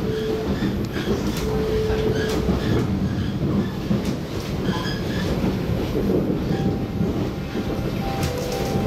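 MTR SP1900 electric multiple unit heard from inside the car while running: a steady rumble of wheels on the track with occasional clicks, and a faint whine that comes and goes.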